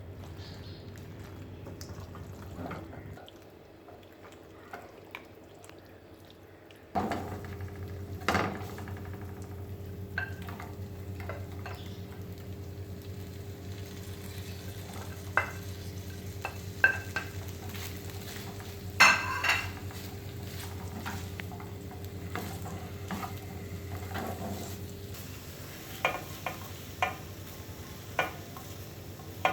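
A spoon stirring and scraping food in a cooking pan, with scattered sharp knocks of the spoon against the pan over a steady low hum.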